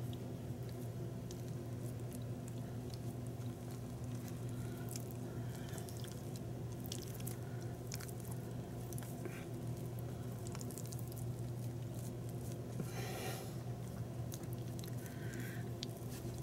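Soft squishing and small tapping noises of hands pressing and stretching raw crescent-roll dough over a filled casserole dish, over a steady low hum.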